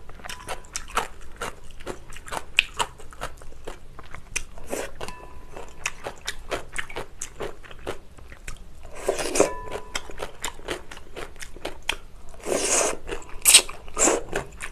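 Close-miked chewing of chewy jjolmyeon noodles, with wet mouth clicks throughout. Two longer slurps of noodles and cold broth come about nine and twelve and a half seconds in.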